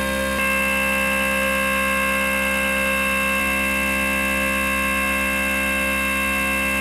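Stepper motor driving a CNC router's Z axis upward through its ball screw at a steady jog speed, giving a steady whine of several fixed pitches. The mix of pitches shifts slightly about half a second in.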